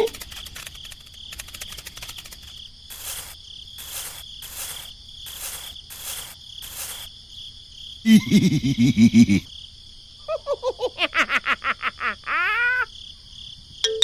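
Steady cricket chirring ambience with sound effects over it: a run of soft, evenly spaced swishes, then a loud low pitched burst about eight seconds in, followed by a quick string of short squeaky gliding tones.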